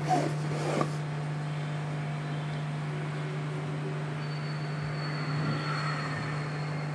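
A cardboard product box being handled, with a few light knocks and rustles in the first second, over a steady low hum that runs throughout.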